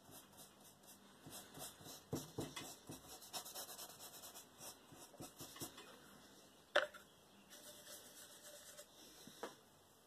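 Bristle paintbrush stroking and dabbing oil paint onto a canvas: a quick run of short brushing strokes, with a sharp click about seven seconds in.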